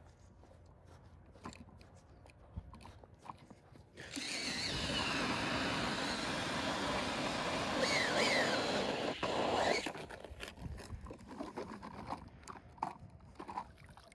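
Cordless drill driving an ice auger down through pond ice, starting about four seconds in, running for about six seconds with its whine rising and falling, then stopping abruptly.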